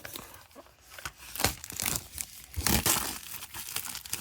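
Plastic packaging on a box of hockey cards crinkling and being torn open, in irregular rustles and rips.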